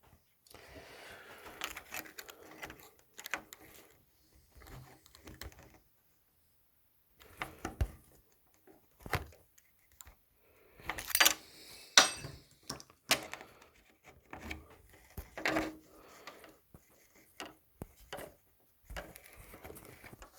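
Irregular small clicks and taps of a precision screwdriver and small metal parts being handled on a phone's frame as its screws are driven in. The sharpest clicks come in a cluster about halfway through.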